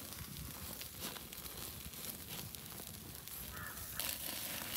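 A crow caws once about three and a half seconds in, over faint outdoor background noise with scattered small clicks.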